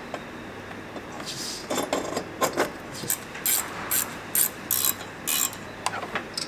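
Hand ratchet wrench clicking in a run of short strokes, about two a second, starting about a second in, as bolts are run in on the 1JZ's turbo and exhaust manifold.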